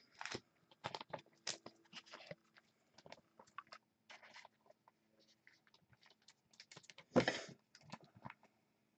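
Quiet scattered clicks and soft rustles of things being handled, with one louder rustle about seven seconds in.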